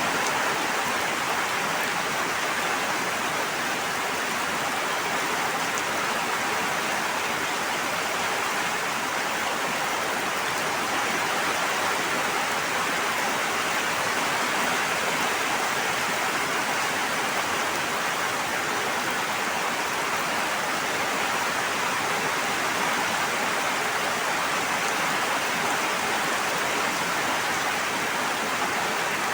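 Steady, unbroken water noise: an even hiss of falling or rushing water with no distinct drops or breaks.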